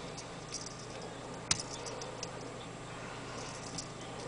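Small metallic clicks of a folding stainless steel multi-tool pocket knife being handled as its tools are opened, with one sharper click about one and a half seconds in and a few fainter ticks around it.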